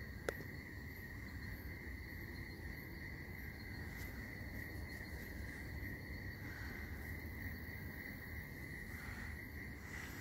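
Steady, continuous high trilling of night insects, over low rumbling background noise, with a single sharp click shortly after the start.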